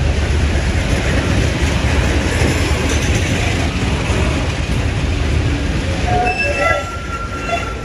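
Freight train's covered hopper cars rolling past close by: a steady, loud rumble of wheels on rail. A few thin, high-pitched tones come in near the end.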